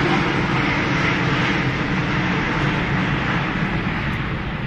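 Airbus A380 airliner's four turbofan engines in flight during a display, a loud steady jet rumble and hiss that starts to ease off near the end.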